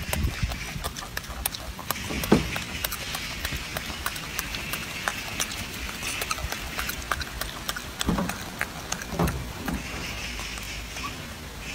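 Golden snub-nosed monkey chewing fruit close up: irregular clicks and smacks from its mouth, with a few dull thumps, the loudest about two seconds in and others around eight and nine seconds. A steady hiss of background sits behind it.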